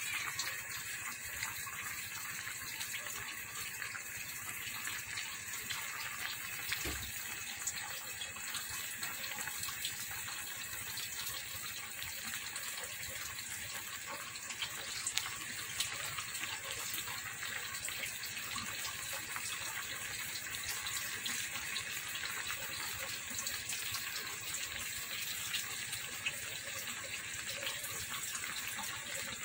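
Coconut-milk broth of ginataang tilapia simmering in a pot under bok choy leaves: a steady bubbling hiss with small scattered pops.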